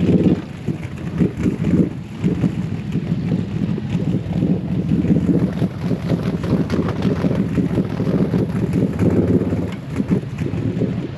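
Can-Am Renegade 1000 XMR ATV's V-twin engine running while the quad sits sunk in a mud hole, with water splashing and bubbling around it.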